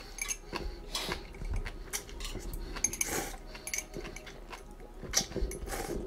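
Chopsticks clicking and scraping against a thin aluminium ramen pot and its lid used as a plate, a run of light, uneven clinks as noodles are lifted out and eaten.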